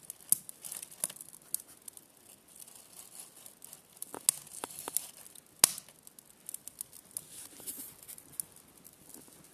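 Freshly lit kindling in a wood stove crackling, with scattered sharp pops and clicks and one louder click about five and a half seconds in.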